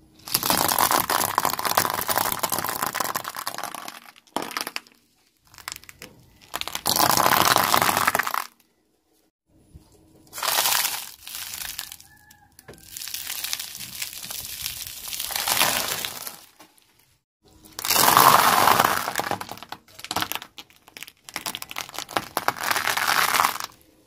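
Dry pasta and snacks crunching and crackling as a car tyre rolls over and crushes them, some of them in aluminium foil trays that crumple under the tyre. The crackle comes in several separate bursts of a few seconds each, with short quiet gaps between.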